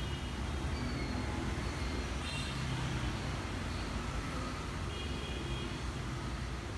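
Steady low rumble and hiss of background noise, with a few faint, short high tones.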